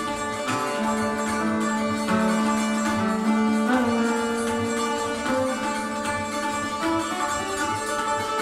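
Indian classical slide guitar played flat on the lap in raag Charukeshi: sustained plucked notes that slide smoothly from one pitch to the next over a steady drone note. Tabla accompanies with regular strokes and deep bass-drum thumps.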